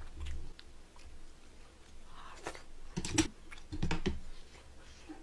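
Close-miked eating sounds: chewing a mouthful of braised chicken with wet mouth clicks. A few sharp clicks and knocks come about halfway through as a spoon is worked at the pan of chicken stew.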